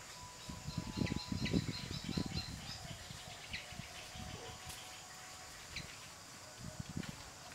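Small birds chirping outdoors in trees, with a quick run of short high chirps in the first couple of seconds and a few single chirps later, over low rustling thumps.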